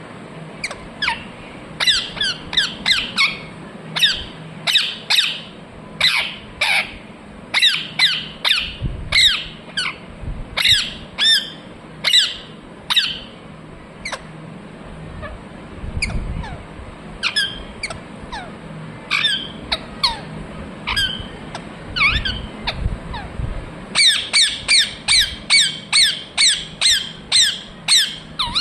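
Ringneck parrot squawking in quick runs of short, sharp calls, each dropping in pitch. There is a lull about halfway through, then a fast, even run of calls near the end.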